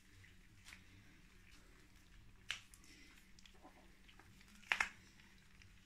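Puppies eating dry kibble from a metal bowl: scattered soft clicks and knocks of kibble and bowl, the loudest a close double knock near the end.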